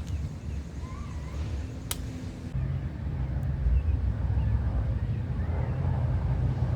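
Low, steady rumble with a hum, and one sharp click about two seconds in.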